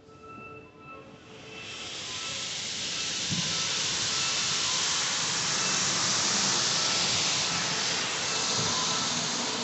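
Water jets of an automatic car wash spraying onto the car, heard from inside the cabin: a hiss that builds up about a second and a half in and then holds steady.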